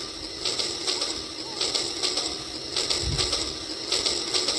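Battery toy steam locomotive running along its track, playing a rhythmic steam-chugging effect: hissing chuffs in pairs, repeating about once a second. A low thump comes about three seconds in.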